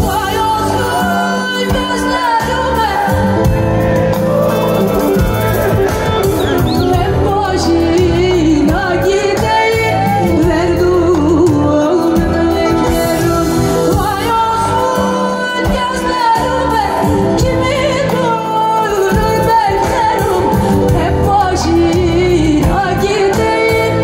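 A woman singing live into a microphone, amplified through a PA system and backed by a band, with a wavering, ornamented melody line.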